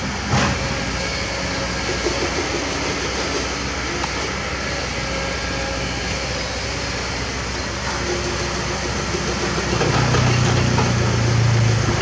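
Diesel engines of trucks and an excavator running steadily. There is a short knock just under half a second in, and a deeper engine hum grows louder from about ten seconds in.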